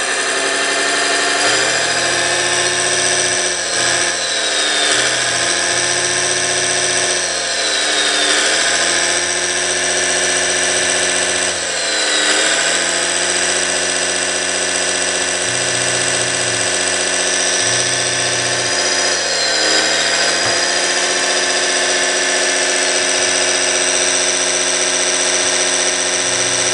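Simulated diesel engine sound from an RC excavator's sound module, played through its onboard speaker. It runs steadily, with the engine pitch dipping and recovering about five times as the controls are worked. A steady high turbo whistle runs over it, which the owner wants removed because the machine shouldn't have a turbo.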